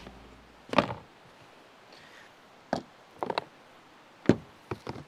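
Hollow plastic clunks and knocks from a plastic storage tote being handled: the lid is lifted off and set down, and cans and jars knock together as things are taken out. About six sharp knocks, the loudest about a second in and just past four seconds.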